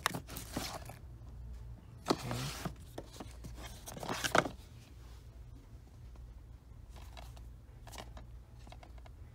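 Plastic DVD cases scraping and rubbing against one another as they are pushed aside and pulled from a shelf. The sound comes in a few short bursts, the loudest about four seconds in, with fainter ones near the end.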